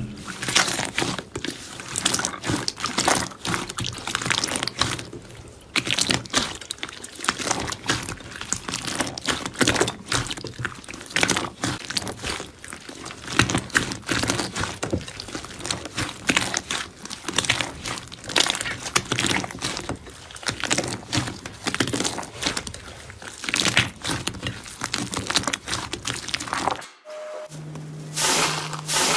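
Slime being squeezed, pressed and stretched by hand, making a dense run of quick wet crackles, clicks and pops. The sound breaks off briefly near the end.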